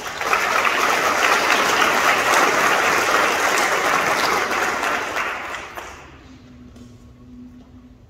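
Audience applauding, which fades away after about five seconds, followed by a faint held note near the end.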